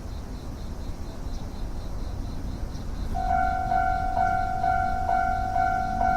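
A railroad crossing warning bell starts ringing about halfway through: a clanging tone re-struck roughly twice a second, signalling an approaching train. Before it there is a low rumble.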